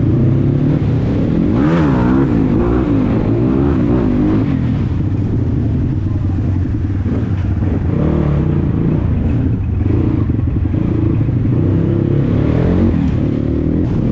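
Single-cylinder 250 cc Chinese dirt bike engine running at low speed, its pitch rising and falling repeatedly as the throttle is opened and closed.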